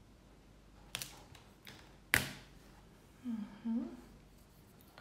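Two sharp taps about a second apart, the second the louder, then two short hums of a person's voice.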